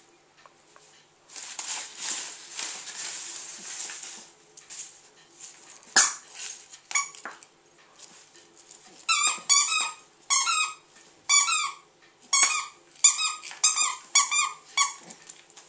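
A plush penguin squeaky toy squeaking over and over as a small dog bites it: about nine short squeaks in quick succession in the second half. Earlier, wrapping paper crinkles and rustles for a couple of seconds.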